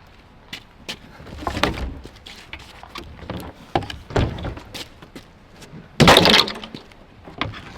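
Construction debris being thrown onto a trailer: scattered thuds and clatters, with one loud crash about six seconds in.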